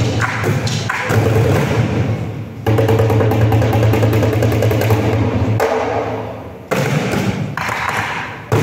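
Percussion ensemble beating a blue plastic barrel drum and a row of small drums. The strokes get a sudden, loud, fast roll a few seconds in that dies away about two seconds later, and then the whole group comes back in with a loud entry.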